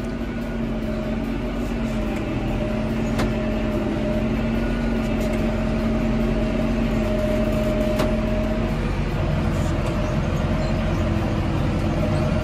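Tractor engine running steadily, heard from inside the cab while a silage bale is fed out, with a steady higher whine that stops about three-quarters of the way through.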